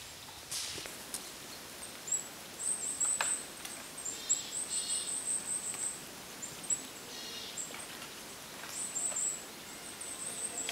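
A small songbird's very high, thin calls, short notes given in quick runs, twice, over a quiet forest background. A short rustle comes about half a second in.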